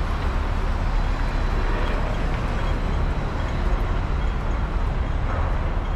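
Steady city street traffic noise with a constant low rumble.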